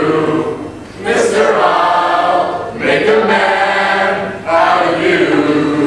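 Mixed choir of about a dozen men and women singing a cappella, in sustained phrases broken by short breaths between them.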